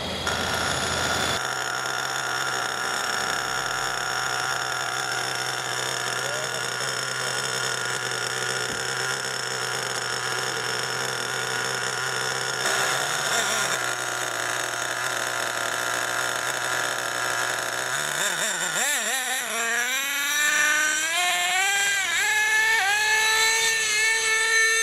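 Radio-controlled model car's motor: a steady hum made of several even tones, then in the last quarter repeated revving, the pitch rising and dropping back about once a second.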